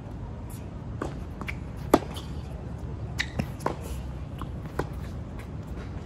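Tennis rally on a hard court: a series of sharp pops from the ball off racket strings and bouncing on the court, the loudest about two seconds in.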